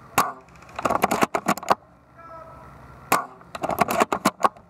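Airsoft gunfire: a single sharp snap, then a quick, irregular run of snaps about a second in, another single snap around three seconds, and a second run near the end.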